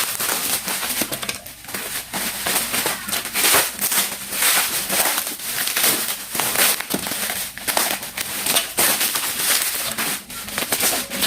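Thick bubble wrap being pulled and unwrapped by hand: continuous crinkling and crackling of the plastic, with many sharp snaps.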